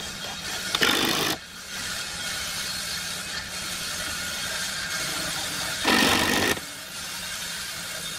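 Cordless drill running into wood in two short bursts, about five seconds apart, each lasting just over half a second.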